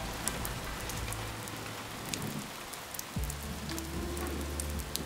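Steady rain falling, with scattered sharp drop ticks. A low steady hum comes in about three seconds in.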